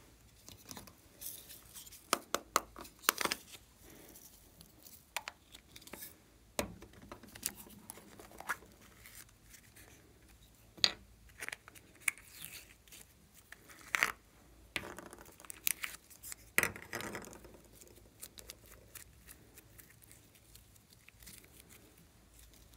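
Sticky glossy slime being handled by hand: an irregular run of crackles, clicks and short tearing pops as it is pulled apart and pressed, busiest in the middle and thinning out near the end.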